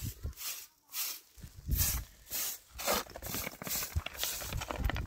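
Straw broom sweeping: a run of brisk swishing strokes, about two or three a second, across a floor and onto packed dirt.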